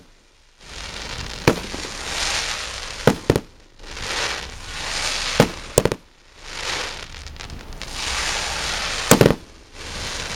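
Aerial fireworks: long rising hisses as shells climb on their tails, broken by sharp bangs of shells bursting, several in a row with the loudest about nine seconds in.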